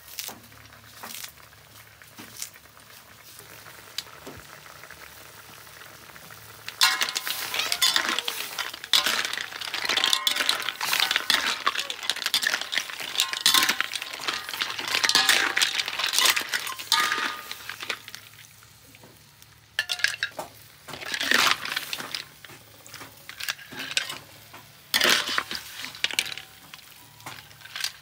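Clam shells clinking and clattering as a metal spatula stirs them around a steel wok, dense and loud from about a quarter of the way in; later it breaks into shorter separate scrapes and clinks as the clams are scooped out of the wok.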